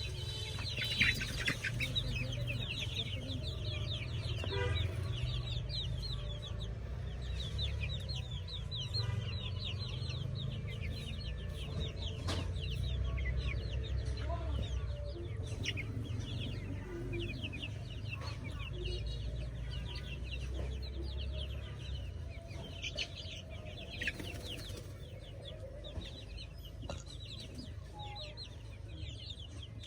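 A flock of chickens calling: many short, high, falling peeps overlapping continuously, over a steady low rumble.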